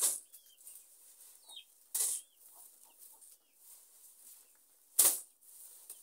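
Handfuls of boo (cowpea) leaves being beaten and thrown down on a sack to clean them, making three sharp rustling slaps: one right at the start, one about 2 s in and the loudest about 5 s in.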